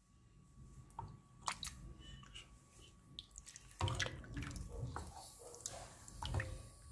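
Wooden spoon stirring soft cheese in a metal pot of milky liquid: wet sloshing and squelching with scattered light clicks. It gets louder and busier about four seconds in, as the cheese is stirred vigorously.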